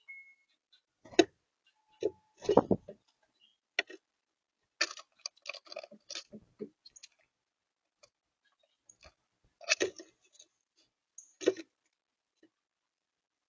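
Irregular sharp taps and clicks at a backyard bird feeder, in short clusters, typical of birds pecking at the feeder and its seed.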